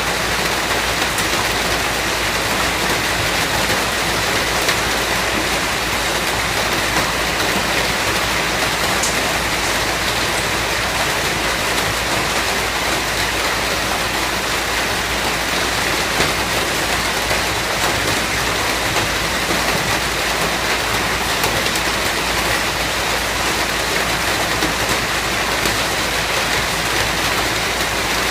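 Steady rain falling, a dense even hiss of drops with no breaks.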